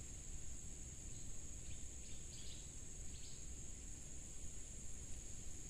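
Steady high-pitched insect drone, with a few faint bird chirps in the middle.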